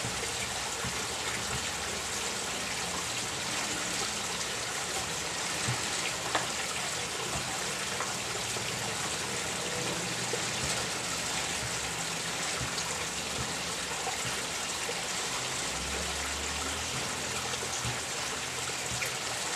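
Small garden waterfall splashing steadily over rocks into a pond, with a few faint clicks.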